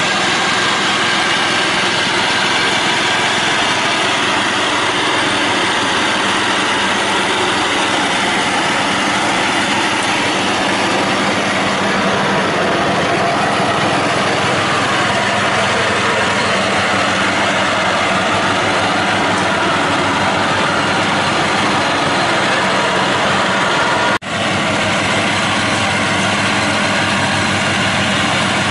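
Ride-on lawn tractor's engine running steadily under load while mowing grass, broken once by a momentary drop-out about 24 seconds in.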